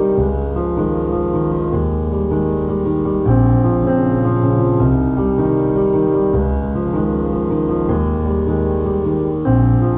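Background piano music, slow sustained chords changing every second or so.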